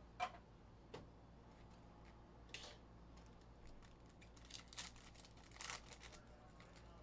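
Faint crinkling and tearing of a foil trading-card pack wrapper being torn open by hand, in a few short bursts, after a sharp tap and a lighter click in the first second.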